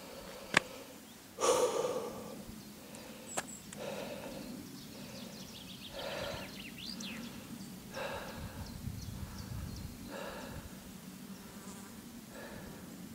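A hiker's heavy breathing after a steep climb: one loud sighing exhale about a second in, then softer breaths every two seconds or so.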